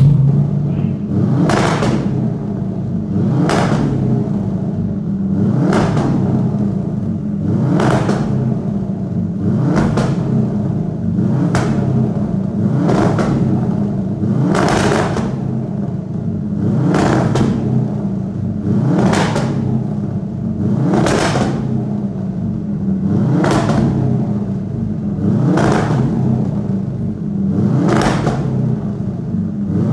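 Subaru Impreza WRX's turbocharged flat-four running steadily, with a sharp bang from the exhaust about once a second. The bangs come from an anti-lag-style 'grilling' program written onto the factory ECU.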